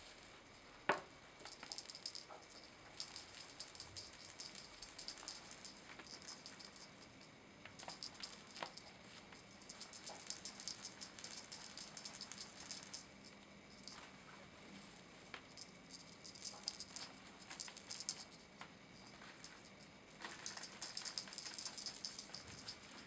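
Small metal bell on a feather wand cat toy jingling in bouts of a few seconds as the wand is shaken, with short pauses between.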